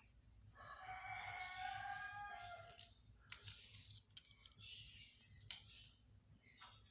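Small plastic toy kitchen pieces being handled: a drawn-out high squeak lasting about two seconds starting about half a second in, then a few light, sharp plastic clicks.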